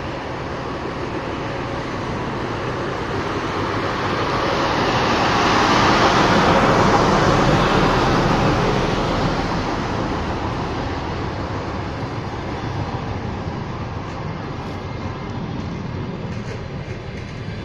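A DR1A diesel-hydraulic multiple unit passes close by. The noise of its leading power car swells and peaks about six to eight seconds in as it goes past, then the trailing coaches roll by with steady rolling noise.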